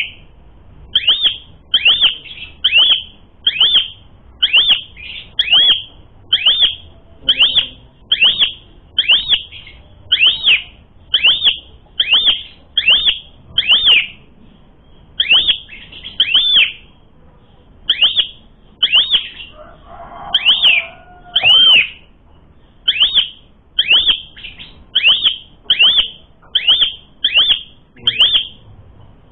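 Asian pied starling (jalak suren) calling over and over, a sharp note that rises and sweeps down, repeated about one and a half to two times a second.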